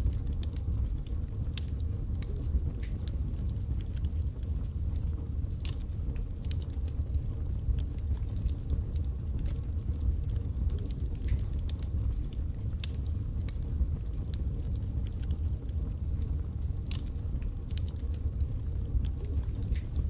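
Wood logs burning in a fireplace: a steady low rumble of the flames with irregular sharp crackles and pops.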